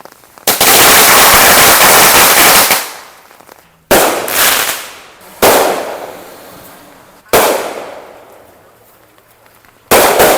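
Consumer fireworks going off: a loud crackling hiss lasting about two seconds, then four sharp bangs a second and a half to two and a half seconds apart, each trailing off as it fades.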